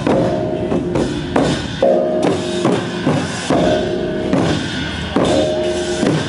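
A northern Thai klong puja (ก๋องปู่จา) ensemble playing: large barrel drums struck hard together with hand cymbals, and bossed gongs ringing after the strokes. The strokes come in repeating phrases about every one and a half to two seconds.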